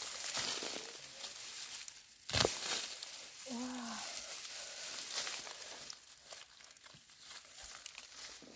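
Rustling and crinkling noises with one sharp crack a little over two seconds in, and a brief falling call about three and a half seconds in.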